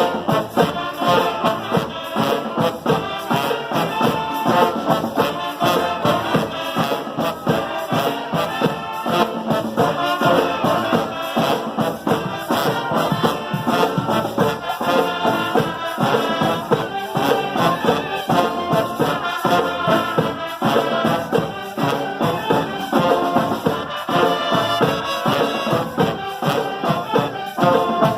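Brass street band playing a salsa tune: trombones and trumpets over steady hand percussion such as tambourine and shakers.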